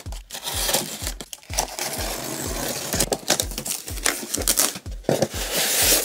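A cardboard shipping box being opened by hand: tape tearing, cardboard flaps and a foam packing insert scraping and rustling, loudest near the end. Background music with a steady beat, about three beats a second, runs underneath.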